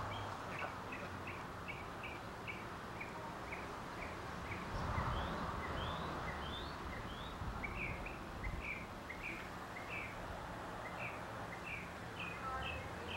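A bird chirping over and over, short high notes about two a second, over steady outdoor background noise.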